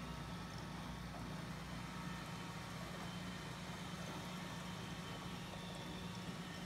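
Steady low hum of aquarium equipment running, with air bubbling through the tank water.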